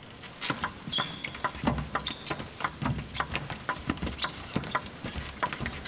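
Table tennis rally: the ball clicks off bats and table in quick, irregular succession. Short high shoe squeaks on the court floor come about one and two seconds in.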